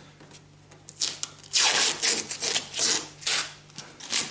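Hand rubbing and peeling leftover spoiler adhesive off a car tailgate: a run of uneven rubbing strokes starting about a second in.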